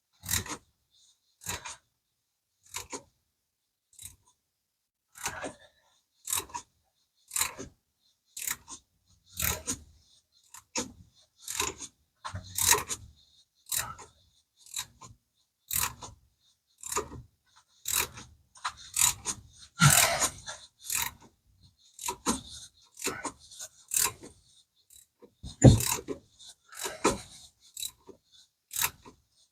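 Hand ratchet wrench being worked in short strokes on metal engine parts: a run of sharp clicks about once or twice a second, busier in the middle.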